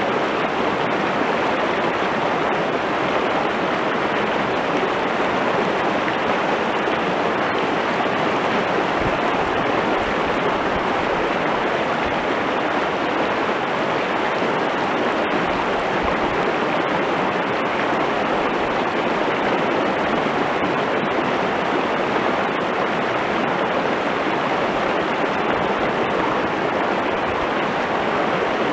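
Shallow river running fast over stones and small rapids close by: a steady, unbroken rush of water.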